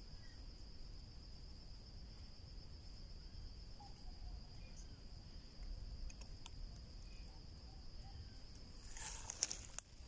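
Insect trilling steadily at one high pitch, with a faint, even background hum. Near the end, brief rustling as leaves and ferns are brushed.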